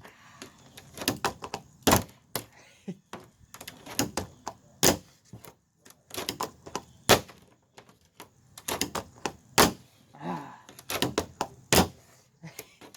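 Tech Deck fingerboard clacking on a trash can lid: repeated sharp clicks of the board's tail and wheels popping and landing, with a louder smack every two seconds or so as it comes down from a trick.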